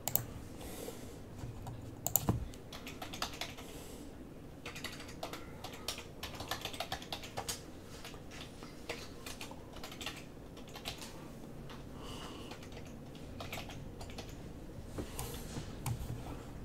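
Typing on a computer keyboard: irregular runs of light key clicks with short pauses between them.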